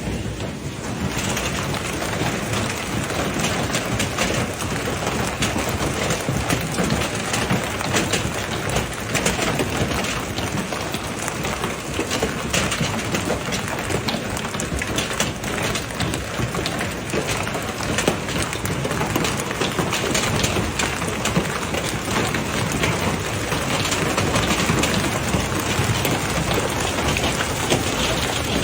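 Heavy rain pouring down, a steady loud hiss made of many small drop impacts.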